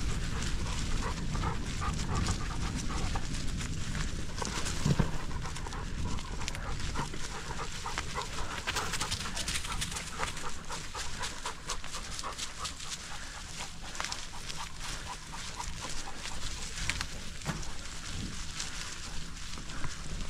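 A dog panting hard as it runs alongside a bicycle, over a low wind rumble with scattered crackles.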